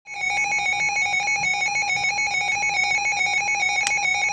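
Electronic emergency-alert tone warbling rapidly between two close pitches in a steady, even pattern, with a short click about four seconds in.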